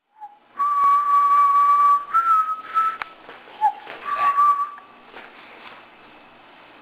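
A person whistling: a long held note, then one a step higher, a few short notes, and one more held note that stops about five seconds in.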